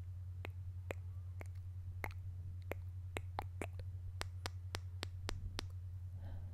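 A series of about fifteen short, sharp clicks, irregular at first and then coming faster in the middle, over a steady low electrical hum.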